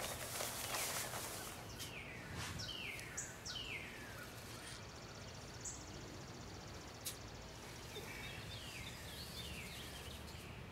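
A bird repeating short calls that slide downward in pitch, over steady outdoor background noise; near the start, a brief rustling hiss of sand pouring out of a bag.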